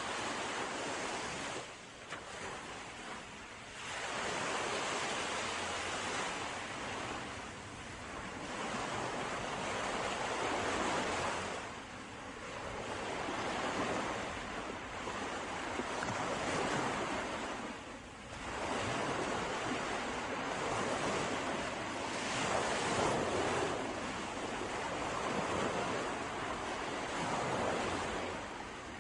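Sea waves washing ashore, the surf swelling and falling back every few seconds, with some wind on the microphone.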